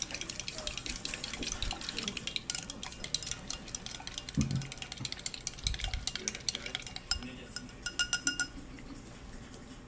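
Dishes and food containers clattering and clinking as they are handled, with a few dull knocks about halfway through and a quick run of ringing clinks near the end.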